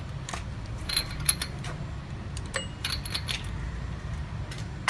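Scattered light metallic clinks and rattles of a spark plug wrench turning as a side spark plug is screwed into a Bajaj Pulsar NS200 engine, over a steady low background hum.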